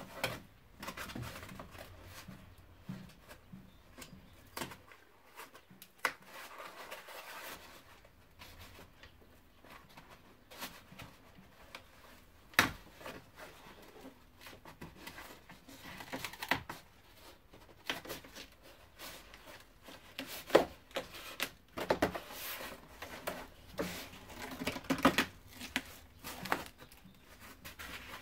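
Car door's grey insulating membrane being peeled off the inner door panel: irregular crinkling and tearing, broken by scattered sharp clicks and taps.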